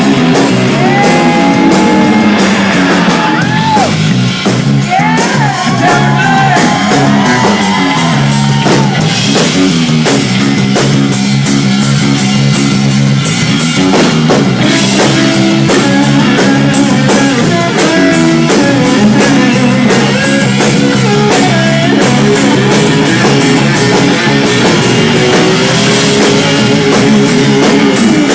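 Live rock band, electric guitar, bass and drum kit, playing loud and steady, with a lead guitar line of bending, gliding notes over the rhythm.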